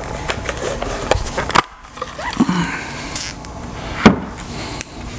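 Plastic housing of a Ryobi 40V lithium-ion battery pack being pried and pulled apart: scraping and creaking plastic with many small clicks, a sharp snap about a second and a half in and a louder one about four seconds in as the case halves come apart.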